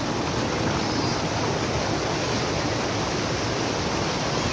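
Steady rush of fast-flowing water, an even noise that does not change.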